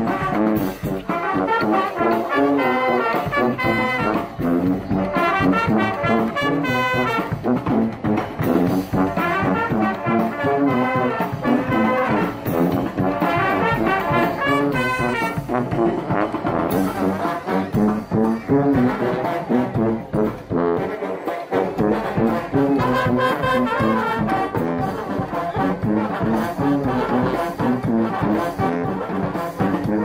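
Street brass band playing a tune, trombones and trumpets over drums keeping a steady beat.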